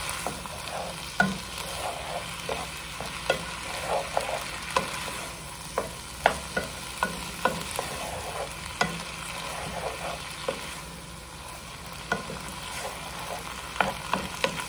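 Lentils, onion and diced tomato frying in olive oil in a pan, a steady sizzle, while a wooden spoon stirs them with frequent irregular taps and scrapes against the pan.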